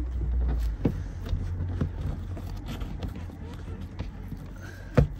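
Fingers pressing a dash-cam cable in behind a car's roof headliner: handling and rubbing noise with a few light clicks and one sharp knock near the end.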